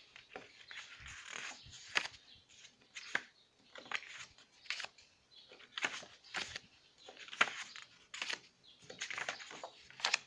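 Stiff paper scrapbook cards being handled and flipped one after another: short rustles and flicks of card stock sliding against the pile, about one a second.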